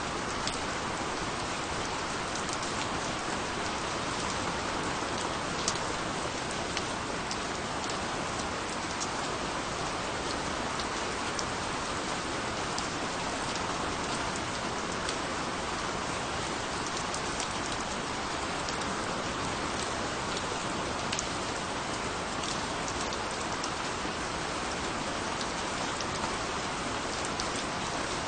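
Steady rain falling, an even hiss with scattered sharp ticks of single drops striking a surface.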